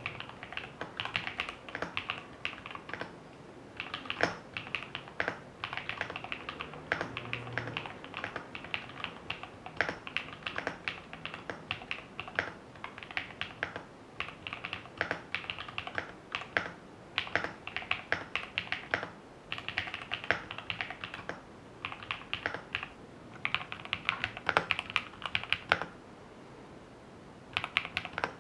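Typing on a Zouya LMK81 aluminium-cased 75% mechanical keyboard fitted with Gateron Modern Grey switches on a polycarbonate plate: quick runs of keystrokes broken by short pauses, the longest a second or two near the end.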